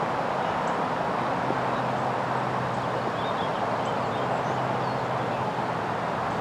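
Steady outdoor background noise with a low, even hum underneath; no distinct events.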